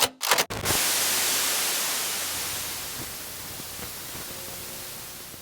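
A few short crackles, then a loud, even hiss of static that slowly fades away.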